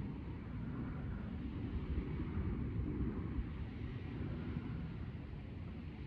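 Steady low rumble of outdoor background noise, with no distinct single event.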